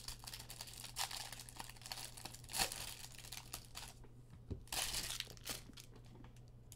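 Plastic wrapper of a baseball card pack being torn open and crinkled by hand: a run of crackling rustles with a few louder bursts, which die away about five and a half seconds in.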